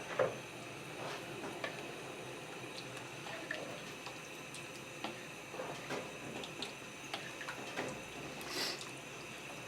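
Stirring a pot of thin curry sauce with a spoon: liquid sloshing with scattered taps and clinks of the spoon against the pot, one sharper knock near the start.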